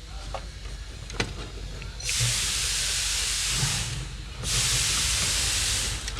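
Two bursts of hissing from a pressurised jet of air or spray, the first about two seconds in and lasting about two seconds, the second starting soon after and lasting about a second and a half, each starting and stopping abruptly. A couple of light clicks come before them.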